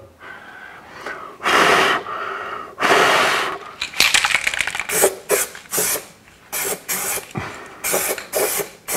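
Aerosol brake cleaner sprayed onto bare sheet metal under the car to degrease it: two hissing bursts of nearly a second each, then a quick run of short hissing bursts.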